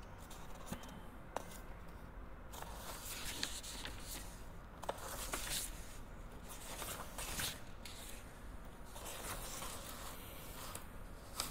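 Faint rustling and scraping handling noises, with a few soft clicks scattered through, over a low steady hum.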